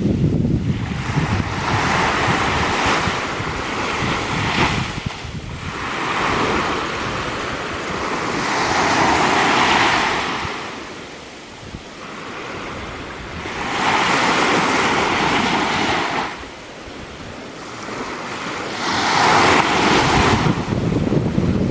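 Ocean surf breaking on a beach: four waves swell and wash in, each rising and fading over a few seconds, with wind buffeting the microphone.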